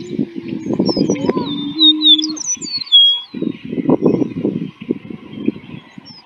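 Greater prairie-chickens booming on their lek, low hollow hoots that are strongest in the first couple of seconds, over a busy jumble of rougher low calls. High songbird chirps and whistles, such as red-winged blackbirds, come in over the top between about one and three seconds in.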